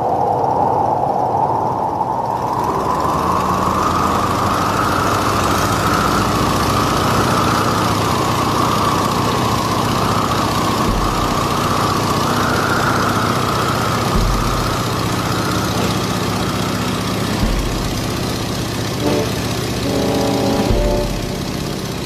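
Engine droning steadily, its pitch rising over the first few seconds and then holding level.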